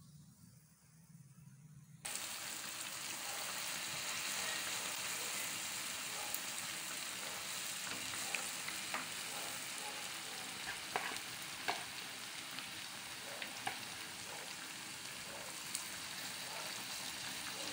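Vegetable fritters (bakwan) deep-frying in hot oil in a wok: a loud, steady sizzle that starts suddenly about two seconds in, with a few sharp pops and clicks scattered through it.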